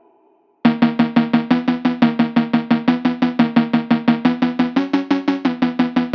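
Background music: after about half a second of silence a new track starts abruptly with a fast, even run of pitched notes, about six a second.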